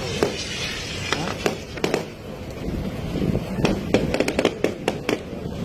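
Fireworks going off: a string of sharp bangs and pops from rockets and aerial shells, with a quick run of crackling reports about three and a half seconds in.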